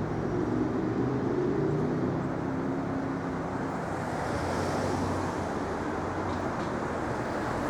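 City street traffic: a steady rush of vehicle noise, with an engine hum strongest over the first three seconds and a brief hiss about four to five seconds in.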